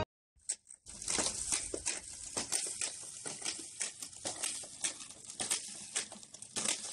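Irregular clicking and rattling of a hand-pushed manual seeder rolling over concrete, its spiked dibbling wheel turning and dropping granules, several clicks a second, starting about a second in.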